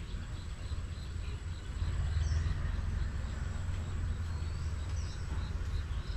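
Outdoor ambience: wind rumbling on the microphone, louder from about two seconds in, with scattered high chirps from birds and insects.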